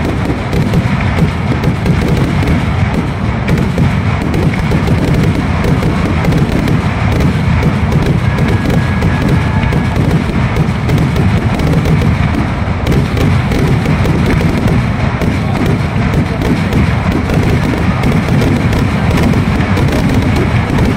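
Kerala temple-festival fireworks (vedikkettu): a dense, unbroken barrage of firework explosions, rapid bangs running together with no break, as aerial shells burst overhead.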